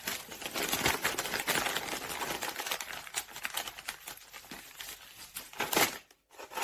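Packaging being handled and opened, a dense run of quick crackling and rustling clicks. It breaks off briefly near the end.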